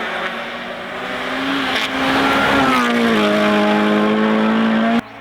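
Rally car engine at high revs, its note dipping slightly about two and a half seconds in, then held steady and louder; the sound cuts off abruptly near the end.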